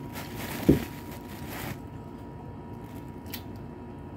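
Handling noise while taking up and peeling a rambutan: a rustling hiss for the first two seconds with one low thump under a second in, then a brief sharp crack near the end as the fruit's skin is split open.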